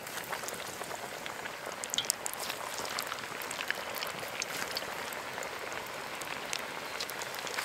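Breaded bitterballen deep-frying in hot oil in a cast iron pot: a steady sizzle with many small sharp pops and crackles.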